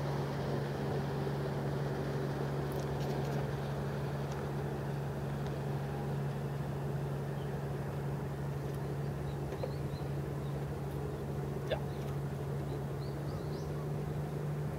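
Small boat's engine running steadily with a low, even hum.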